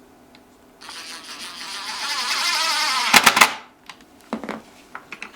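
Cordless drill-driver driving a screw to hang a gate hinge: the motor buzzes for about three seconds, slowing as the screw bites, then ends in a quick rattle of clicks as the screw seats. It stops suddenly, followed by a couple of light knocks.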